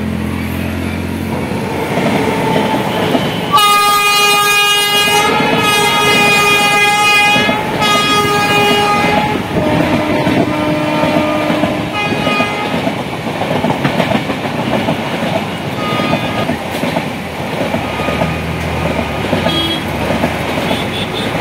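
Indian Railways express train passing: a multi-tone locomotive air horn sounds in about three blasts a few seconds in, over the steady rumble and clatter of the coaches' wheels on the rails, which carries on after the horn stops.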